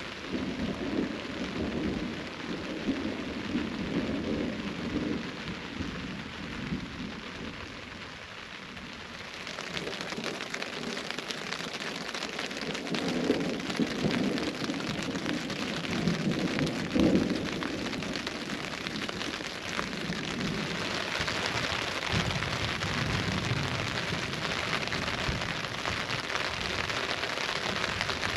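Steady rain falling, with thunder rumbling low several times: a long rumble in the first few seconds, more around the middle, and a fainter one later. The rain grows heavier about a third of the way in.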